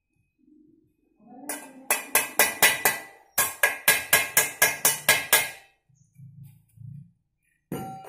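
A metal tool repeatedly striking steel with a ringing clang, about four blows a second, in two quick runs of several blows each. One more knock comes near the end.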